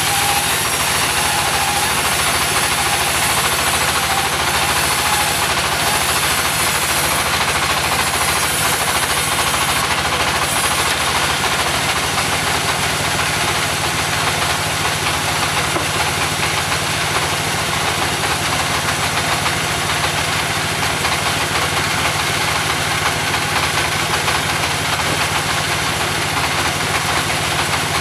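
Engine of a mobile sawmill running steadily under a continuous mechanical din, with a faint wavering high whine during the first ten seconds or so.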